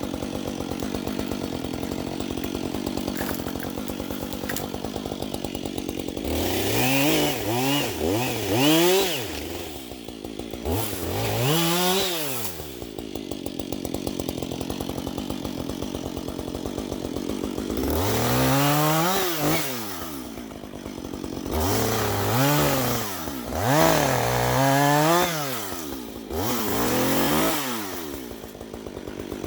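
Two-stroke chainsaw idling, then revved up to full speed and let back down in a series of bursts as it cuts brush: first about six seconds in, again around eleven seconds, and several times in the second half.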